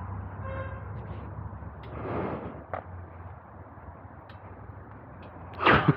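Harley-Davidson Low Rider S's 117 Milwaukee-Eight V-twin with Two Brothers 2-into-1 exhaust running steadily at low revs. There is a brief beep about half a second in, and loud rustling thumps near the end.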